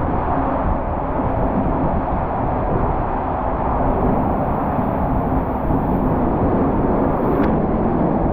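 Steady, loud rushing of water around a ride boat sliding down a waterslide tube.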